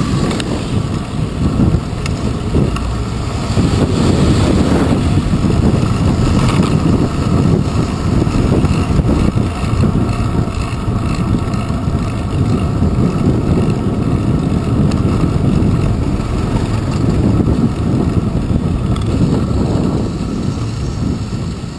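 Wind and road noise picked up by a handlebar-mounted GoPro Hero 2 on a moving bicycle in city traffic: a steady low rushing that eases slightly near the end.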